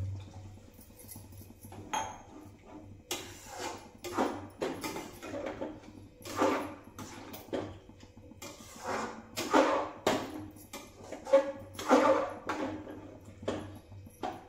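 Metal ladle stirring and scraping in a steel kadai of gravy, with irregular scrapes and clinks throughout, under a low steady hum.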